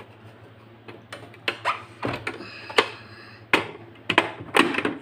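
The plastic extension table of an Usha Janome sewing machine clicking and knocking as it is handled and slid onto the machine's free arm: a string of irregular sharp plastic taps and clicks.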